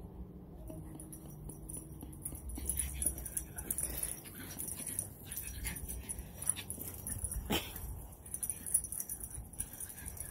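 Pug making small noises while it plays with its bone, with scattered short clicks and scuffs and one sharper click about seven and a half seconds in.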